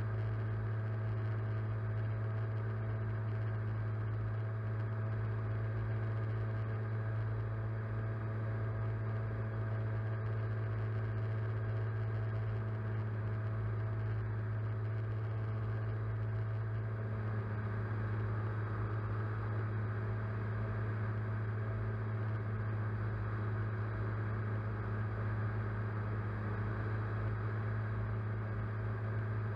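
Electric motors and propellers of a camera-carrying drone, heard from the onboard camera as a steady, even hum with a low drone and a fainter whine above it.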